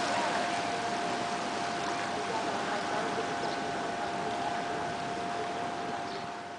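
Fast water rushing through the concrete outflow channel of a small hydropower plant, a steady noisy rush with a thin steady hum running through it. It fades slightly near the end.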